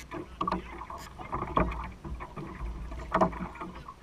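Small waves lapping and slapping against the side of an aluminum fishing boat: irregular knocks and splashes over a low wind rumble, with the loudest slaps about one and a half and three seconds in.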